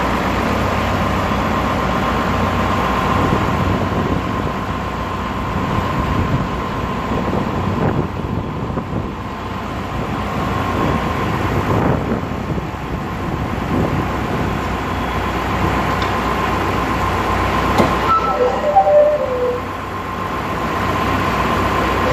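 Tractor engine running steadily with a constant whine over its low rumble, holding a boat hull raised on its front loader. A few short squeaks come near the end.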